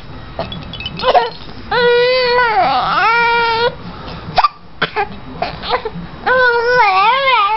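Five-month-old baby with hiccups: several short, sharp hiccups, and two long wavering cries, the first starting about a second and a half in and the second about six seconds in.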